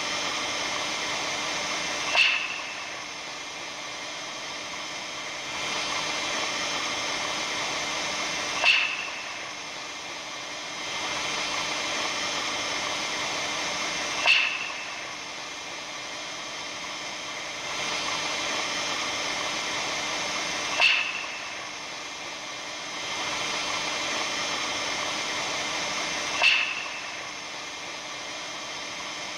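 Recording presented as the sound of the aurora borealis: a steady electric-sounding hiss threaded with faint held tones, with a sharp high chirp about every six seconds, five times in all. After each chirp the hiss drops and then swells back a few seconds later, in an even repeating cycle.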